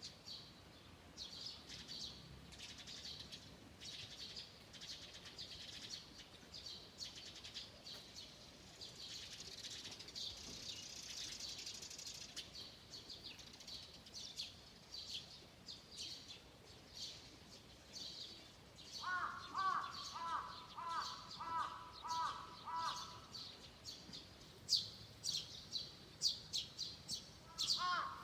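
Wild birds chirping and singing, many quick high notes overlapping. Around two-thirds of the way through, a lower call repeats evenly for a few seconds.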